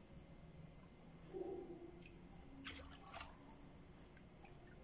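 A wooden spoon stirring thin, watery masa in a clay pot: faint sloshing, with two short scrapes or splashes a little past the middle.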